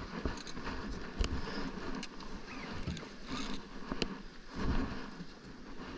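Wind and water noise around a small open boat, with a few sharp clicks and knocks from handling the fishing rod and reel during a fight with a fish.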